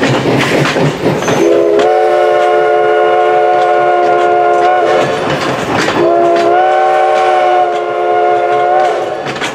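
Steam locomotive No. 11's chime whistle sounding two long blasts, each a chord of several notes that rises slightly just after it opens, over the rumble and clatter of the passing coaches. The blasts are the opening of a grade-crossing whistle signal.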